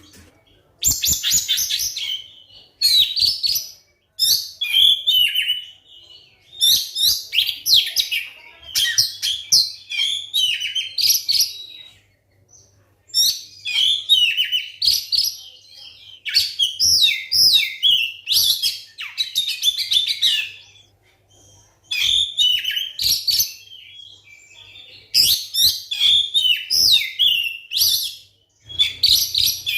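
Oriental magpie-robin (kacer) singing a loud, varied song of fast chirps and whistles, in phrases one to three seconds long with short pauses between them.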